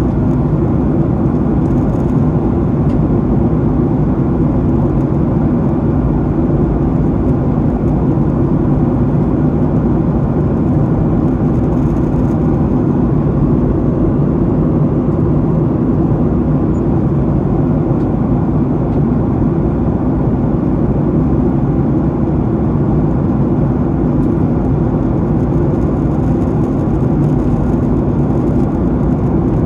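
Steady cabin drone inside a Boeing 737-800 in flight: its CFM56-7B turbofan engines and the airflow around the fuselage make a constant low hum.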